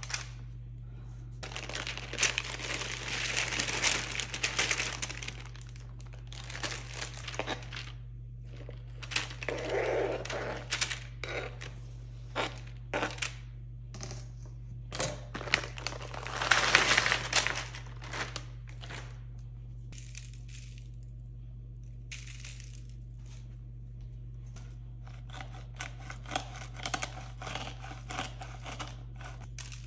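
Parchment paper crinkling as it is pressed flat onto a metal sheet pan, then scattered rustling, crinkling and light clicks as food is laid out on it, with a second long burst of crinkling about halfway through. A steady low hum runs underneath.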